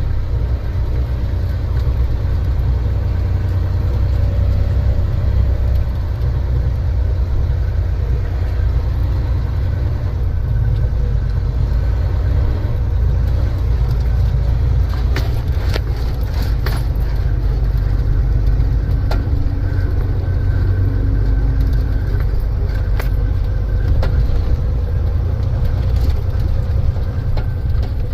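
Heavy dump truck's diesel engine running with a steady low drone. Sharp clicks and rattles come and go about halfway through.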